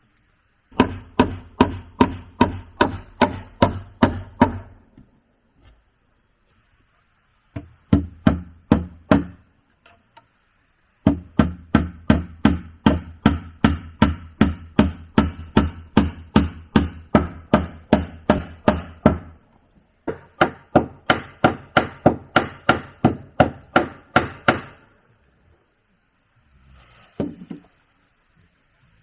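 A hand tool strikes wood in rapid, even blows, about three a second. They come in four runs of several seconds each, split by short pauses, with a couple of lighter knocks near the end.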